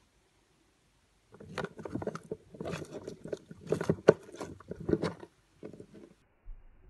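Irregular rustling and scraping in a plastic tarantula enclosure, starting about a second in and stopping about a second before the end, with a few sharper knocks; the loudest knock comes just after the middle.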